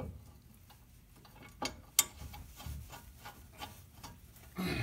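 Scattered light clicks and taps of hand tools and metal brake parts being handled, with one sharp click about two seconds in.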